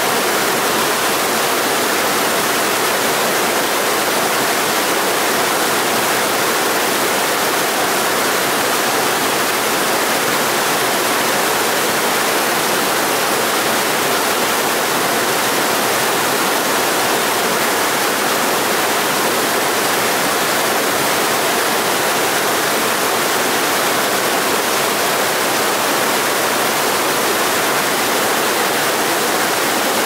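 Mountain stream rushing over boulders in small cascades of white water: a loud, steady, even rush with no change.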